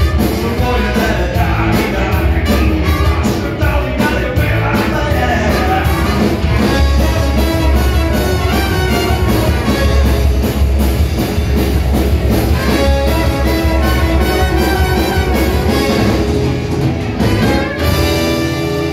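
A live band with trumpet and saxophone plays amplified music loudly, with a singer, drums and heavy bass.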